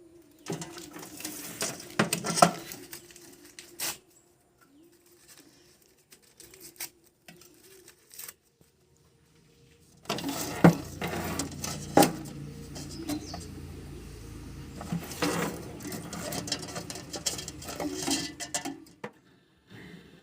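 Handling noises: paper rustling and scattered sharp clicks and knocks as paper is readied and set alight, with a quiet stretch in the middle. A faint low hum joins in about halfway through.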